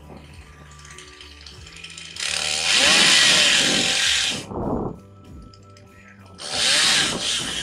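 Chainsaw running in two loud bursts, the first about two seconds long and the second shorter, near the end.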